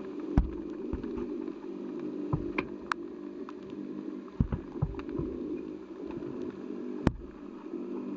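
Underwater sound picked up by a camera two metres down in a river: a steady low hum with scattered sharp clicks and knocks, three of them louder than the rest.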